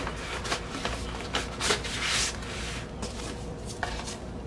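Paper inner sleeve holding a vinyl LP being slid out of a cardboard gatefold album jacket: paper rustling and rubbing, with a few light taps.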